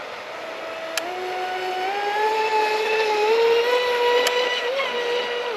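An electric RC speedboat's brushless motor whines at high throttle on a speed run. Its pitch climbs in small steps and it grows louder toward the middle. Two brief sharp clicks come about one second and four seconds in.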